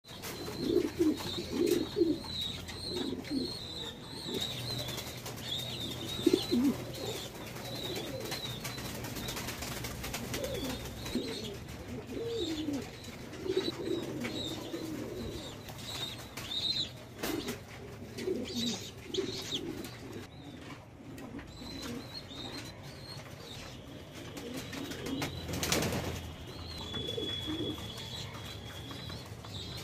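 Caged domestic pigeons cooing again and again, with higher chirping calls mixed in. A single sharp knock or clatter comes about 26 seconds in.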